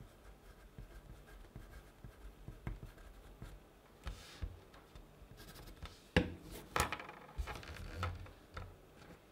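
Wood-cased graphite pencil writing on paper: soft scratching strokes with small ticks. Two-thirds of the way through come a few sharp knocks, the loudest sounds, then more scratching strokes.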